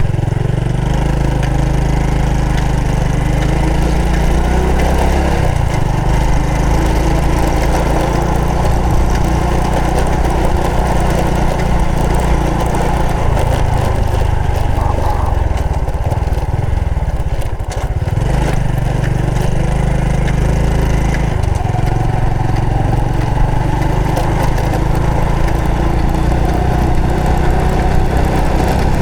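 Honda Supra X 125 FI's single-cylinder four-stroke engine running under way on a ride. The engine note shifts several times, dropping briefly and picking up again past the middle.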